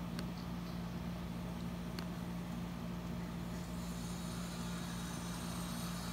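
Beef stock poured into a hot pan, sizzling, heard through a television speaker over a steady low hum; the sizzle builds from about four seconds in.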